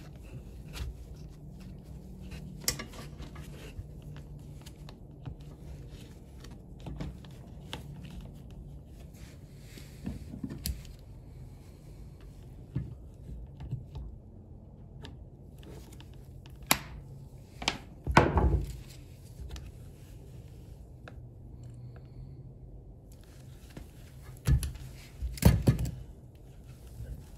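Scattered small clicks, taps and rustles of gloved hands and needle-nose pliers working wires into a circular saw's plastic handle housing, with a few louder bumps about two-thirds through and near the end.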